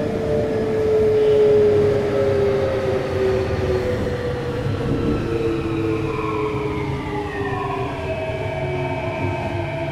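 Kintetsu 3220 series train heard from inside its motor car: the whine of the Hitachi IGBT VVVF inverter and traction motors, several tones sliding slowly down in pitch as the train slows, over a steady rumble of wheels on rail.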